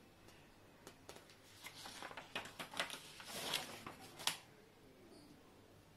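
Faint crackling rustle with scattered sharp clicks, like paper or a pen being handled, starting about a second in and stopping at about four and a half seconds.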